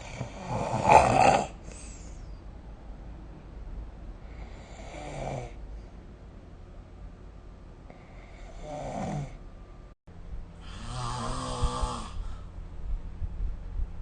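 A sleeping person snoring, four snores spaced about three to four seconds apart. The first, about a second in, is the loudest, and the last is longer, with a buzzing, rattling tone. The sound cuts out completely for a moment about ten seconds in.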